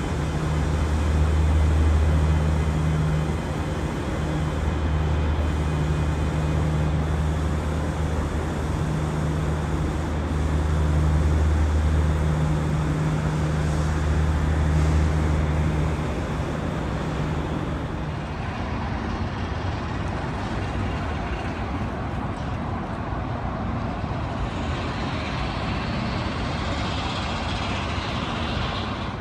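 Steady urban traffic and vehicle noise. A low engine-like hum dominates for the first half or so, then gives way to a more even wash of traffic.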